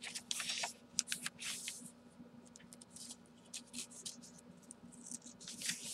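Paper rustling and sliding as cards and handmade envelopes in a junk journal are handled and pulled from their pocket: a quick run of scratchy rustles in the first two seconds, then fainter ones and a few more near the end.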